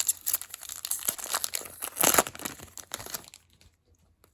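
A foil trading-card pack wrapper being torn open and crinkled, a dense crackle for about three and a half seconds, loudest about two seconds in, then a few faint clicks.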